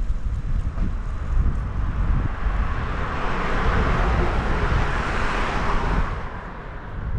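Wind noise on the microphone of a moving bicycle, with a passing car's tyre and road noise swelling up about two seconds in and fading away near the end.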